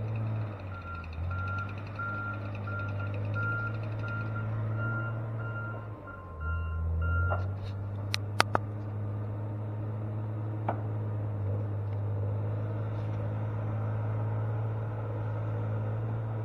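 A heavy logging machine's engine running steadily, dipping in pitch twice as it takes load, while its backup alarm beeps at about two beeps a second for the first seven seconds and then stops. A few sharp knocks come just after the beeping ends.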